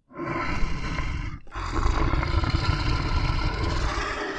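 Tiger growling and roaring, a rough low rumble that runs in two stretches with a short break about a second and a half in.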